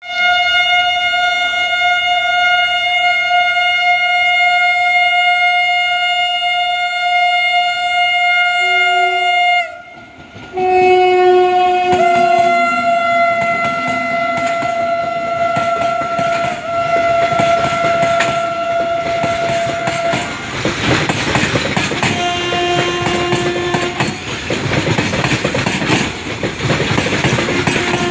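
Indian Railways WAG-9HC electric freight locomotive's air horn sounding one long continuous blast, breaking off briefly about ten seconds in and starting again for another ten seconds. After that, the goods train clatters past with wheels rattling over the rail joints, and short horn toots come twice more.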